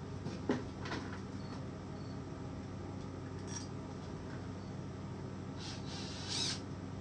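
Light metallic clinks and knocks from hand-assembling a chainsaw powerhead: a sharp knock about half a second in, a lighter click just after, and a short ringing metallic rattle near the end, over a steady low hum.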